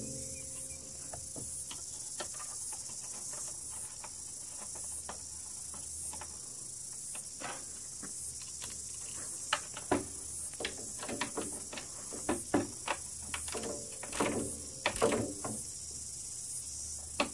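Hand ratchet clicking in short runs while bolts on the radiator fan mount of a Yamaha Viking side-by-side are done up, with scattered knocks of the tool against metal, more of them in the second half.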